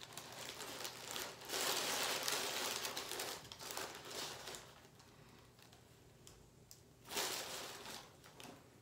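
Paper wrapper of a Subway footlong crinkling and rustling as the sandwich is unwrapped, in two spells: a long one over the first four seconds or so and a shorter one about seven seconds in.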